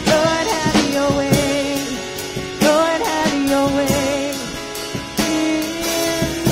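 Live worship band playing: sung vocals over acoustic guitar and drums.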